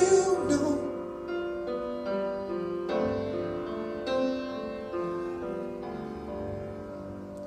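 Piano accompaniment playing slow, sustained chords, a new one struck about every second, as a singer's held note fades out at the start.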